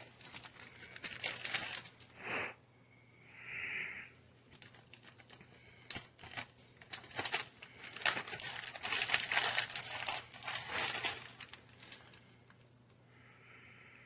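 Plastic pepperoni packaging crinkling and rustling as it is handled: a short spell at the start and a longer, louder spell through the middle.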